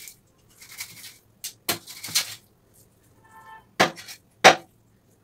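Knife cutting milkfish on a wooden log chopping block: a couple of rasping scraping strokes, then a series of sharp knocks as the blade chops through and strikes the wood, the loudest near the end.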